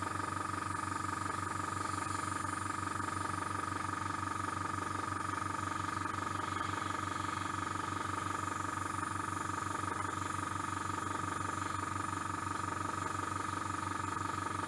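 Small airbrush compressor running steadily with a fast, even, pulsing hum, and air hissing from the airbrush as thinned acrylic paint is sprayed at about 11 psi.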